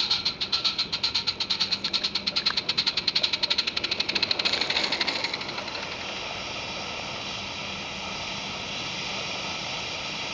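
Small live-steam garden-railway locomotive (16 mm scale on 32 mm gauge track) chuffing with rapid, even exhaust beats, several a second. About five and a half seconds in the beats stop and a steady steam hiss carries on.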